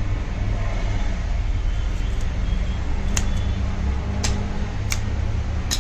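Steady low background rumble with a faint hum, and about four light, sharp clicks in the second half from small parts being handled on the bench.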